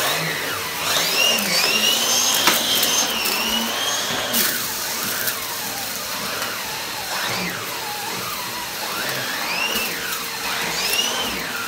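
Numatic Hetty 160 vacuum cleaner running on full with a turbo brush head pushed over carpet: a steady motor hum with a whine that rises and falls in pitch again and again.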